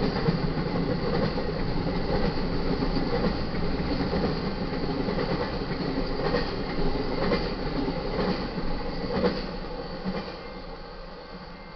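Intermodal freight train cars, flatcars loaded with truck trailers, rolling past with wheels clacking over the rail joints about once a second. The sound fades away near the end as the last car clears.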